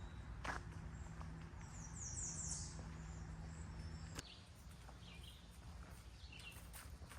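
Birds chirping in the woods: a quick run of high chirps about two seconds in and a few short calls near the end, over a steady low rumble, with two sharp clicks.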